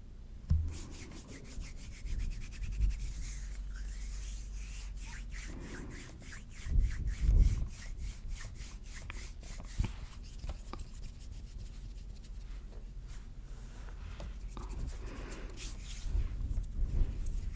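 Hands rubbing close to the microphone in quick, even strokes, with a few low bumps mixed in.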